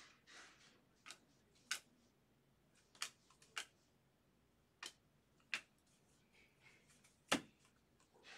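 Baseball trading cards being handled and sorted by hand: faint, irregular sharp clicks about once a second, with a few soft swishes of cards sliding.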